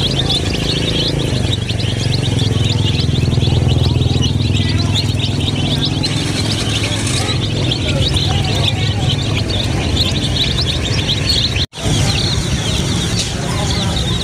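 A flock of domestic chicken chicks peeping constantly, many high cheeps overlapping, over a steady low hum. The sound cuts out for an instant about three-quarters of the way through.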